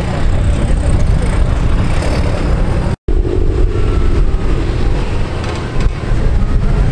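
Cars driving slowly past at low revs, their engines and exhausts giving a steady low rumble, with a momentary gap in the sound about three seconds in.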